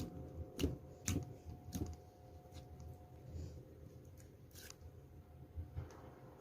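Close-up handling sounds: a series of sharp clicks or taps, several in the first two seconds and a few more later, over light rustling.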